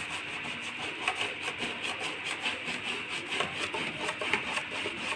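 Stiff antiquing brush loaded with chalk wax scrubbed rapidly back and forth over a painted MDF panel: a steady run of quick, even scratching strokes of the bristles.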